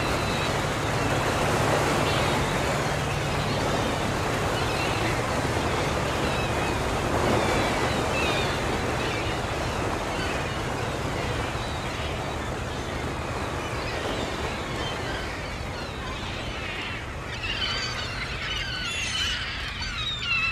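Motor yacht under way: a steady low engine hum under a continuous rush of water. High wavering chirps come in near the end.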